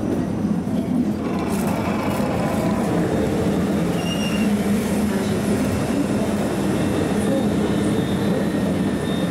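Passenger train coaches rolling past along a platform: a steady rumble of wheels on rail with a constant low hum, and a brief high wheel squeal about four seconds in.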